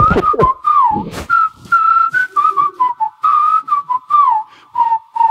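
A person whistling a short tune in quick phrases that slide down now and then, with light clicks keeping time. A couple of thumps sound in the first second.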